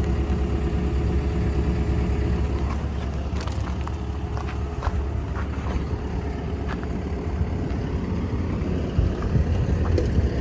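Komatsu PC170LC-10 excavator's diesel engine idling steadily, with a few short clicks and knocks over it.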